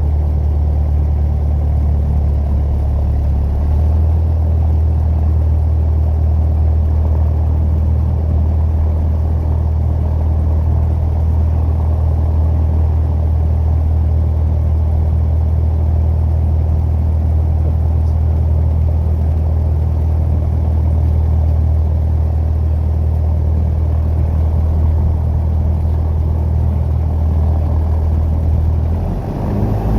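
Piper PA-28 Warrior light aircraft's piston engine running steadily as a deep drone. Its tone shifts slightly a few seconds in and dips briefly near the end.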